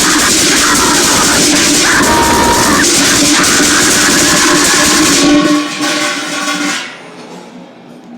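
Loud, dense, distorted music with a few held tones over a noisy wash. The bass drops out about five and a half seconds in, and the whole thing falls away sharply in level near the end.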